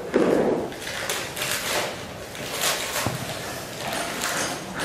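Wrapping rustling in irregular short crinkles as a small gift is handled and opened in the lap, after a brief louder sound right at the start.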